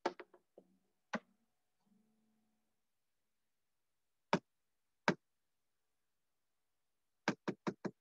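Sharp clicks from operating a computer's mouse or keys: a few single clicks spaced out, then a quick run of about six clicks near the end.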